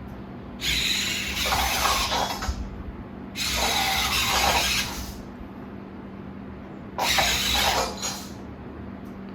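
Servo motors of a Robosen Optimus Prime robot whirring in three bursts of a second or two each as it moves its limbs through an action.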